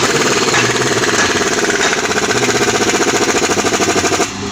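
Compressor running with a rapid, even pulsing beat, then cutting off suddenly near the end.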